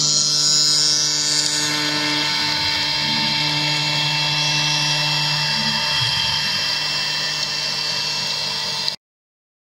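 CNC router's HSD electrospindle running at speed as its end mill cuts pockets in a plate, a steady high machine whine with the hiss of cutting. It cuts off suddenly near the end.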